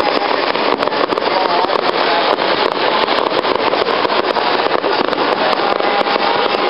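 Fireworks going off in rapid, continuous succession: a dense roar of crackling and many sharp bangs, with a thin steady whistle near the end.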